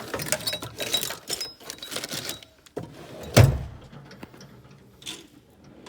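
Metal tool box drawers being handled: rattling and clinking of drawer slides and loose parts, then one loud heavy thud about three and a half seconds in as a drawer is shut, followed by lighter clicks.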